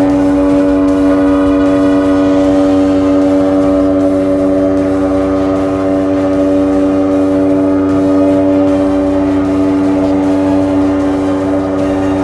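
Outboard motor driving a water-jet unit, running at steady high revs with the boat under way: a loud, even drone whose pitch barely changes, over a low rumble.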